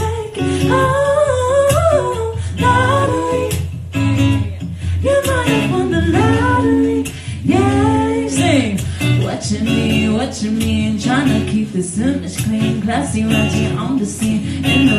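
A woman singing with sliding, bending vocal runs into a microphone, over a strummed acoustic guitar.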